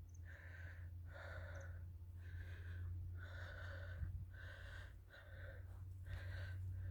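Heavy, rhythmic panting, about ten breaths in and out, roughly one every three-quarters of a second, close to the microphone, over a steady low hum.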